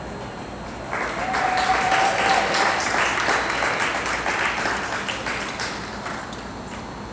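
Spectators applauding, starting about a second in and dying away near the end, with one held call from the crowd early in the clapping.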